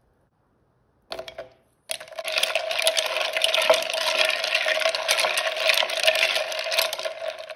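Handheld milk frother whirring in a glass jar of iced coffee, its whisk rattling against the ice and glass as it whips in the creamer. A brief rattle about a second in, then a steady whir from about two seconds in until just before the end.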